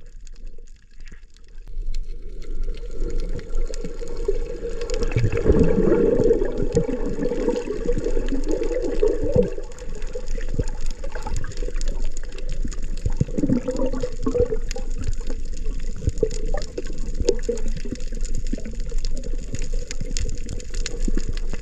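Muffled churning and gurgling of water around an underwater camera during a freedive, with scattered light knocks. It is quieter for the first two seconds, then louder and steady.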